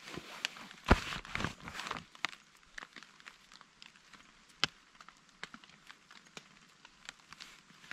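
A paper coffee sachet torn open by hand: a burst of ripping and crinkling about a second in. Scattered raindrops tick on the tarp overhead, with one sharper tick in the middle.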